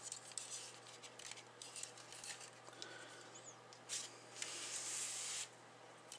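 Plastic model kit parts handled and clicked together as a shield's tab is pressed into its slot: a scatter of small clicks and taps. About four seconds in, a longer rubbing hiss lasts a second and a half.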